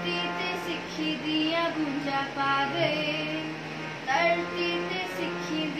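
A young girl singing a Punjabi devotional verse in a slow, wavering melody over a steady held drone.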